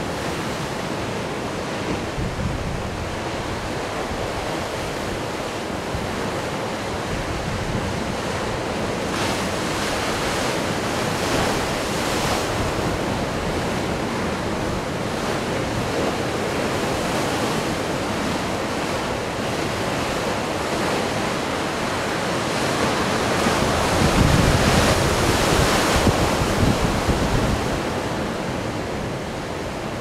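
Atlantic Ocean surf washing continuously onto the shore, with wind buffeting the microphone. The waves swell louder about a third of the way in and most loudly near the end.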